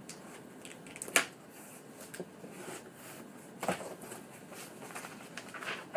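Scissors cutting the packing tape on a cardboard box and the flaps being pulled open: cardboard rustling, with a sharp snap about a second in and another knock a little past halfway.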